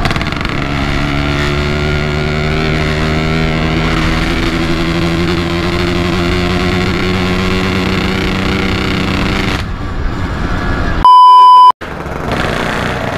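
Two-stroke motorcycle engine running at a steady cruising speed, with wind rumble on the microphone. A little under ten seconds in, the engine sound drops away, and about a second later a very loud, high, pure censor bleep sounds for about half a second.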